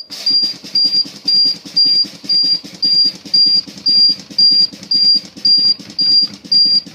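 School bus low-air-pressure warning buzzer beeping steadily about twice a second, over hissing air as the brake pedal is fanned to drain the air-brake system's pressure. The buzzer signals that system pressure has fallen below about 60 PSI.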